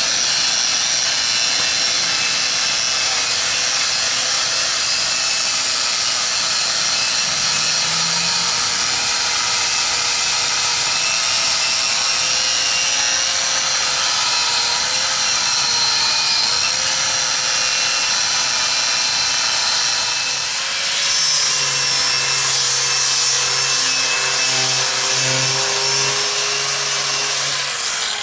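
Electric angle grinder with a wire cup brush running steadily against a rusted steel caboose roof, stripping paint and rust. The motor's whine wavers slightly under the load, and the sound dips briefly about twenty seconds in.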